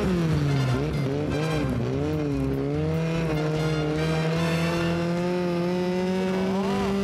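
Midget race car's 2-litre Ford Focus four-cylinder engine at high revs, heard from on board. The note dips and wavers as the throttle is worked, then holds steady and climbs slightly toward the end.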